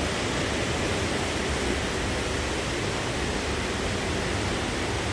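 Steady, even rushing noise inside a Sydney Trains K-set passenger carriage, with no change in level.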